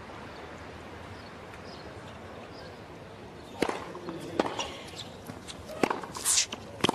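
Tennis ball struck by rackets and bouncing on a hard court: a quiet crowd hush, then sharp pops starting about halfway in as a rally gets going, with a short high squeak near the end.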